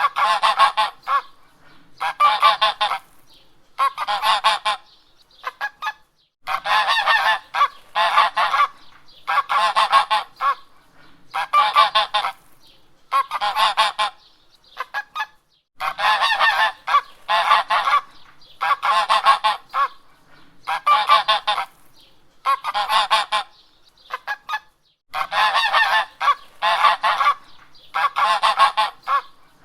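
Domestic geese honking: repeated loud, nasal honks, about one a second, in runs broken by short pauses.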